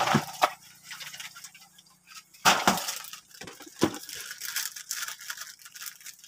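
A ladle knocking and clinking inside a large plastic drink container as drinks are scooped out. There are a few sharp knocks, the loudest about two and a half seconds in and again near four seconds, with lighter clicks and rattling between them.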